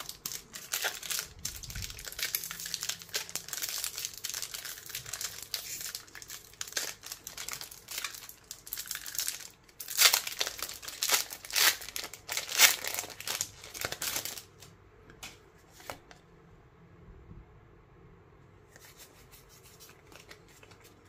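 Foil wrapper of a Pokémon trading card booster pack crinkling as it is handled and torn open, with the loudest rips about ten to fourteen seconds in. After that it goes much quieter, with a few soft ticks as the cards are handled.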